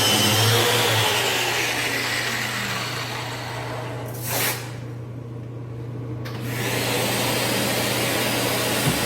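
Electric power tool used for sanding marble, running steadily: a broad whirring noise over a constant low hum. About four seconds in, a brief whoosh, after which the hiss drops away for about two seconds before coming back.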